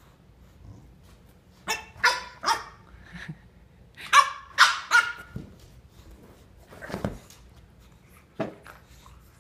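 Puppy barking in high-pitched barks: two quick runs of three, about two and four seconds in, then two single, weaker barks near the end.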